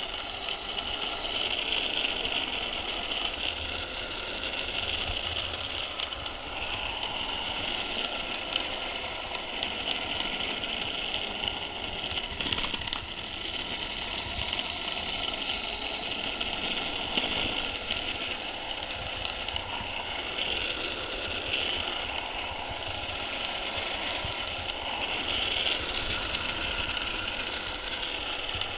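DIY electric longboard riding on asphalt: the wheels roll with a steady hiss and rumble, under a faint whine from its Turnigy Aerodrive SK3 6364 brushless motor and chain drive. A few knocks come from bumps in the road.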